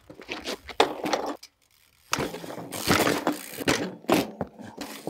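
Trials bike hopping and landing: tyres and frame knocking and scraping on the ground in a string of sudden impacts, with a short silence about a third of the way in, then more clattering as the bike is dropped.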